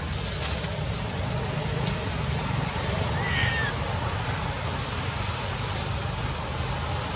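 Steady outdoor background noise with a low rumble, and one short, high animal call a little over three seconds in.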